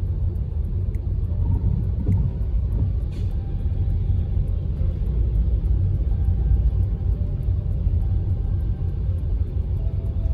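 Steady low road and tyre rumble from an MG EP electric car driving on a rain-wet highway, with a brief hiss about three seconds in.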